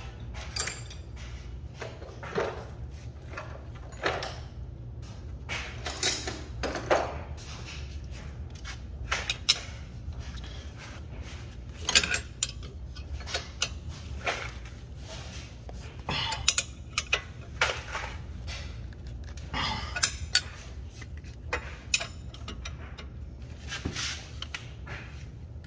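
Irregular metal clinks and knocks of hand tools and parts being handled during work on a car's front wheel hub, over a steady low hum.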